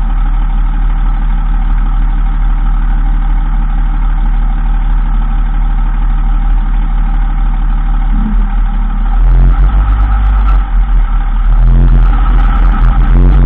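A 2003 Dodge Ram 2500 running, with a steady drone of even tones that the owner puts down to the transfer case when it is in 4x4 High. The drone changes and gets louder about nine seconds in.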